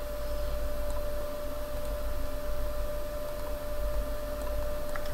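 Steady background hum of the recording, with a constant high whine over a low rumble and hiss; a faint click or two near the end.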